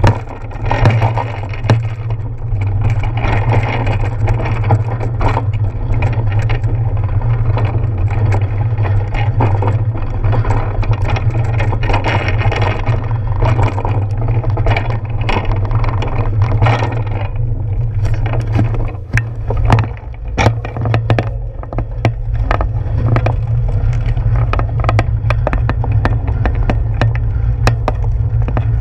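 Wind buffeting and road rumble picked up by a GoPro camera mounted on the handlebars of a moving bicycle, a steady low rumble with frequent clicks and rattles from bumps in the road surface.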